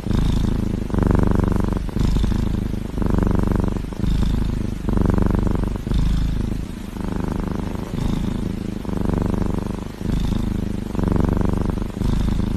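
Kitten purring loudly and close to the microphone, the purr swelling and fading about once a second.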